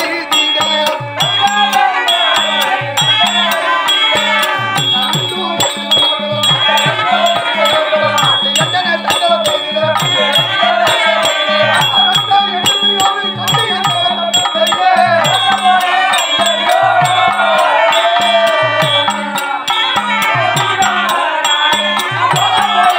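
Therukoothu folk-theatre music: a hand drum beats a steady rhythm under a wavering melody line, with the jingling of a dancer's ankle bells.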